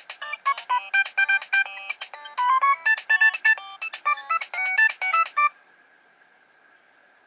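Nokia 3100 ringtone playing a fast melody of short electronic notes, cutting off suddenly about five and a half seconds in, followed by a faint steady hum.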